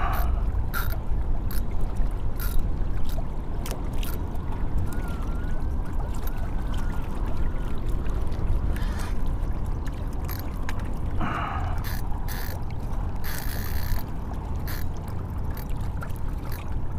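Steady wind buffeting on the microphone and water lapping against a kayak hull, with scattered light clicks and knocks.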